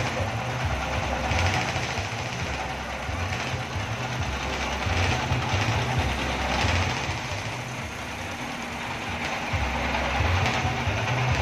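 Stationary diesel engine driving a kora-kora fairground ride, running with a loud, knocking exhaust. Its sound swells and eases every four to five seconds.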